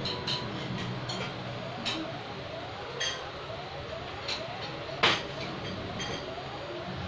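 Scattered sharp clicks and clinks from small hard objects being handled during installation work, one louder click about five seconds in. A faint rising chirp repeats evenly in the background.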